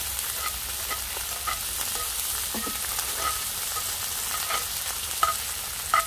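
Hanwoo beef striploin sizzling as it cooks, a steady hiss with small scattered pops and crackles of spitting fat.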